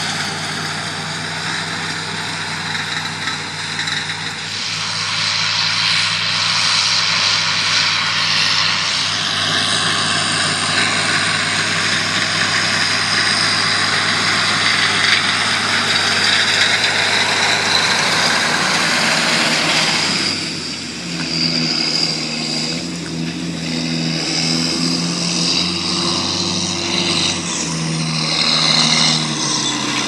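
John Deere 7710 tractor's six-cylinder diesel engine running steadily under load, with the rush of a front cultivator and rear seedbed combination working through dry soil. About two-thirds of the way through, the engine note comes more to the fore.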